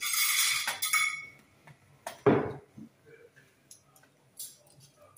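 A metal utensil scraping and clinking in a metal baking tray as cannelloni is cut and served, with a sharp knock about two seconds in.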